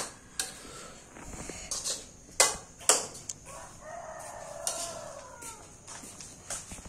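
A metal spatula clanks and scrapes against a steel wok as fried rice is stirred, with the two loudest strikes about two and a half and three seconds in. About halfway through, a rooster crows once for roughly two seconds.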